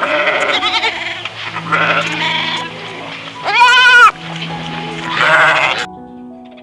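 Four bleats in a row, the loudest a quavering call about three and a half seconds in, over background music with held notes.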